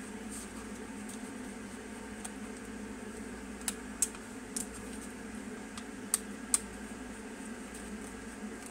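Small screwdriver clicking and tapping against the hard plastic case of a car gear-selector module as its screws are worked loose: a few sharp clicks near the middle and two more a little later. Under it runs a steady hum, which is water being heated nearby.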